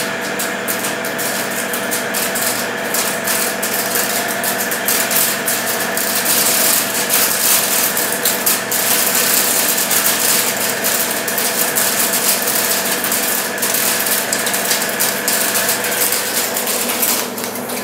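Metal lathe running with a boring bar taking a roughing cut inside the bore of a crane sprocket: a steady whine from the lathe's drive with dense rapid crackling from the cut, louder from about six seconds in. The cutting noise thins out near the end.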